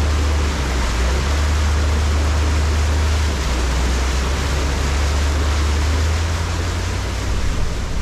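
A motorhome driving through flooded road, its tyres ploughing through the water and throwing up a steady rushing spray, over a deep continuous rumble that eases off near the end.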